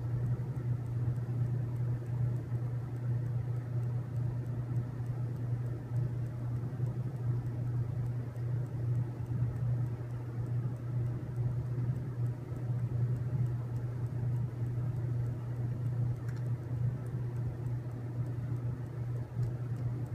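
Steady low machine hum, unchanging throughout, with a few faint clicks near the end.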